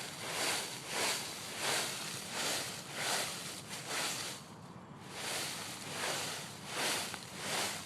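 Dry fallen maple and ginkgo leaves rustling and crunching in a regular rhythm, about three swishes every two seconds, with a brief lull a little after the middle.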